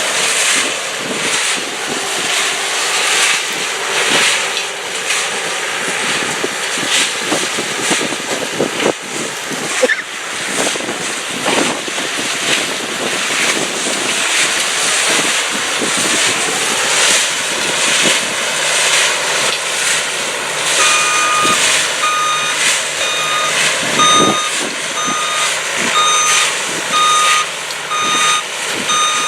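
Heavy screening machinery running, a trommel screener and its conveyors, with steady mechanical noise and irregular clattering. From about two-thirds of the way in, a vehicle's reversing alarm beeps repeatedly at an even pace.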